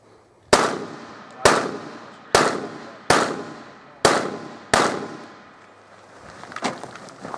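Pistol shots: six sharp reports roughly a second apart, each trailing off with echo, then a couple of much fainter sharp knocks near the end.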